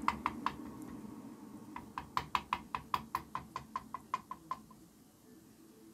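Nylon mallet tapping on the crank of a Villiers 9D two-stroke engine to split the heated crankcase halves apart. Quick light taps, about five a second, in a short run at the start and a longer one from about two seconds in that fades out.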